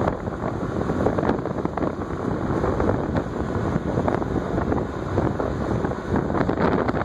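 Wind rushing over the microphone of a camera mounted on a moving scooter: a steady, dense roar, with the scooter running underneath.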